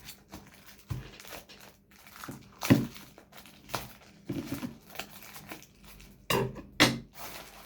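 Parcel packaging being crinkled and torn open by hand: irregular rustles and sharp crackles, with a louder burst about three seconds in and again near the end.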